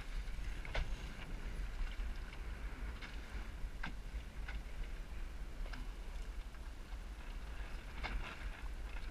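Wind rumbling on the microphone while a small Snark sailboat moves under sail, with short splashes and slaps of water against the hull coming irregularly about every half second to second.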